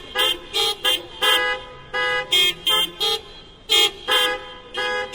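Several car horns sounding in a hocket, trading short honks of different pitches back and forth in a quick rhythm of about two to three a second, with a few notes held longer.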